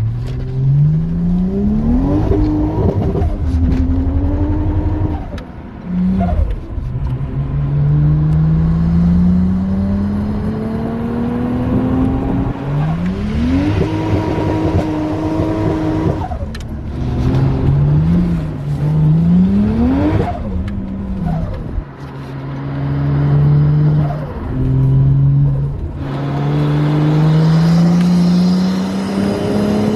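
Lexus IS 200t's turbocharged 2.0-litre four-cylinder accelerating hard several times, its pitch rising through each gear and dropping at the shifts, with turbo flutter when the throttle is lifted.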